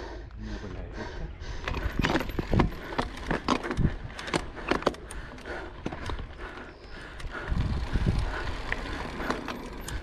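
Mountain bike rolling down a rough dirt-and-rock descent: irregular knocks and rattles from the bike and tyres over a steady low rumble.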